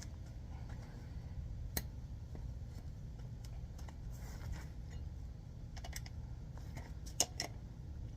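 A few light, sharp clicks and knocks, a pair of them close together near the end, over a steady low rumble.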